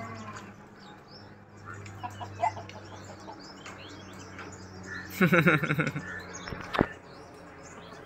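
Small birds chirping over a steady low hum. About five seconds in there is one loud pitched cry lasting under a second, and a sharp knock follows soon after.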